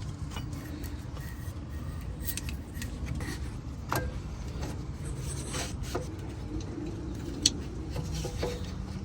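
A few sharp light metal clicks and taps with some rubbing from small brake parts being handled, over a steady low background hum.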